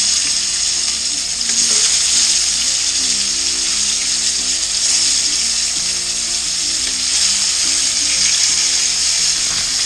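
Ruffed grouse breast pieces sizzling steadily as they shallow-fry in hot oil in a nonstick pan, with faint background music underneath.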